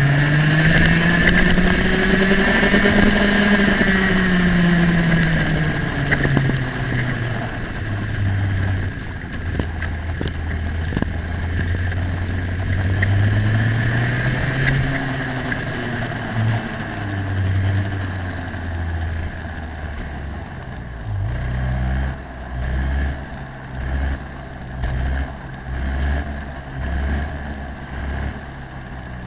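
Racing kart engine heard onboard, its pitch rising and falling through the first few seconds, then dropping to a low, steady note as the kart slows off the throttle. Near the end the low engine note swells and fades about once a second.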